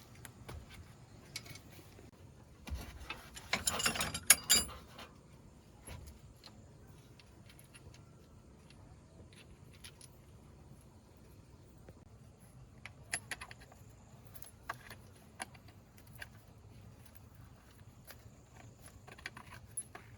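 Metal tools and parts clinking and rattling as they are handled, in scattered bursts. The loudest cluster of jangling clinks comes about four seconds in, with single sharp clicks later on.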